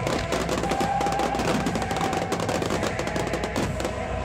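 Fireworks going off in rapid, dense crackles and bangs, many per second, over music playing.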